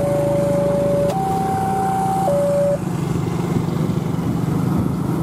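Freight train of tank wagons rolling past with a steady rumble of wheels on rail. Over it, an electronic two-tone warning signal alternates between a low and a higher note, about a second each, and stops about three seconds in.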